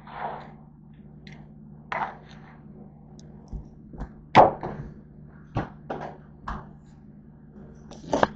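Handling noise close to a wood floor: a string of separate knocks and short rustles as objects are moved and set down, the loudest a sharp knock about four seconds in, over a steady low hum.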